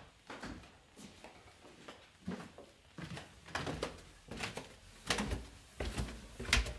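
Footsteps walking down a flight of attic stairs: a series of separate thuds about every half second to a second, heavier and louder near the end.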